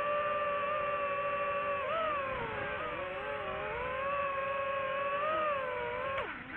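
Quadcopter drone's propellers whining in flight: several close pitches that hold steady, then dip and rise as the motors change speed, with a brief drop near the end.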